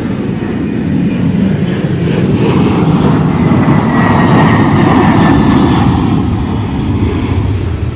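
Jet airliner passing low overhead. Its engine noise swells, peaks about halfway through and then fades, with a faint whine that slides slightly down in pitch as it goes by.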